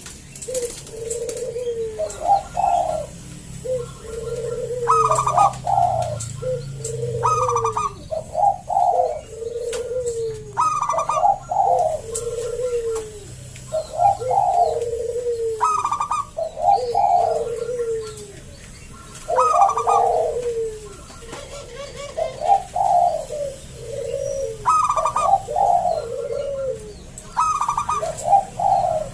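Local perkutut (zebra dove) singing with a deep, full voice: a steady run of repeated cooing phrases, each stepping down in pitch, about one every one to two seconds. Faint high chirps sound in the background.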